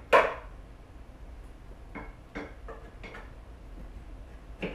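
Metal tools knocking against a mobility scooter's frame as it is taken apart: one sharp, loud clank just after the start, then a few lighter clicks and knocks about two to three seconds in and another near the end.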